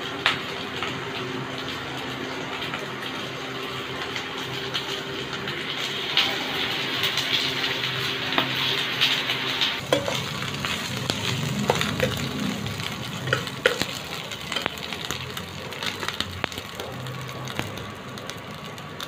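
Wet raw prawns being handled in a steel bowl over a steady hum that stops about halfway, then sliced onions and green chillies sizzling in hot oil in a pan, stirred with a steel spoon that clicks and scrapes against it.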